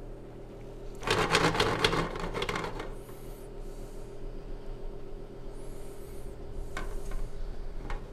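A rough rubbing, scraping noise lasting about two seconds, starting about a second in, over a steady low hum.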